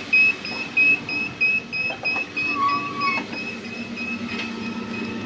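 A machine's alarm buzzer beeping rapidly and evenly, about three high-pitched beeps a second, growing fainter partway through, over a steady low hum of factory machinery that gets stronger toward the end.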